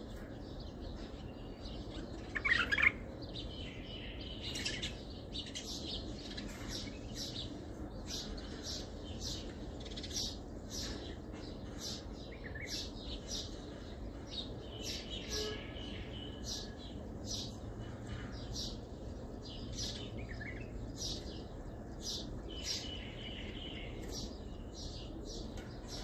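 Bulbul singing in the Baghdadi song style: a continuous run of short, high, clear notes, about two a second, with one louder phrase about two and a half seconds in.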